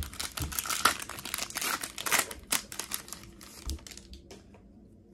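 Foil wrapper of a Pokémon Trading Card Game booster pack crinkling as it is torn open by hand. It is a dense crackle that dies away after about three seconds, leaving a few faint rustles.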